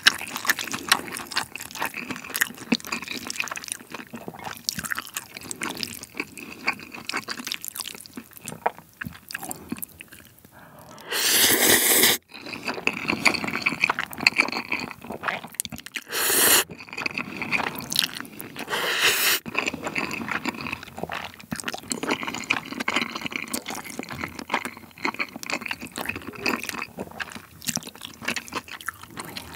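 Close-miked wet, sticky chewing of Jjapagetti black-bean-sauce noodles. Three loud noodle slurps break it: a long one about eleven seconds in, then shorter ones about sixteen and nineteen seconds in.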